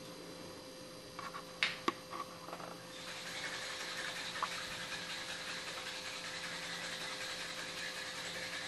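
A few light clinks as glass sample bottles of acid and oil are picked up, then a steady sloshing hiss from about three seconds in as the bottles are shaken vigorously.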